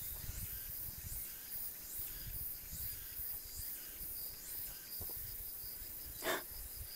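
Insects chirping: a steady high buzz with repeated short chirps above it, over low, uneven thuds and rustling of footsteps on a trail. One brief louder sound comes about six seconds in.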